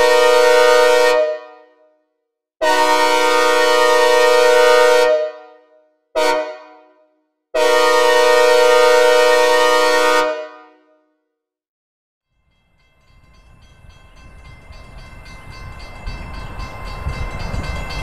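Synthesized recreation of a Nathan K5LA five-chime air horn sounding the grade-crossing pattern: long, long, short, long blasts, each dying away in reverb. Then a train's rumble starts low and grows steadily louder over the last few seconds, as the approach begins.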